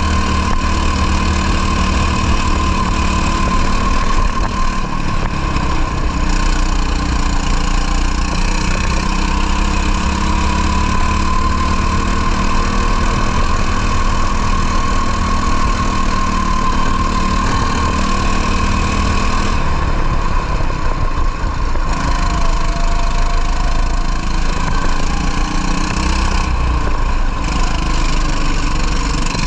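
Racing kart engine running hard at speed, heard onboard, its pitch wavering slightly as the kart laps, with the upper sound briefly thinning about two-thirds of the way through.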